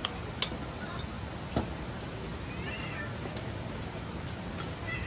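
A few sharp taps, then a short high-pitched animal call with a bending, falling pitch about two and a half seconds in, over a steady background hiss.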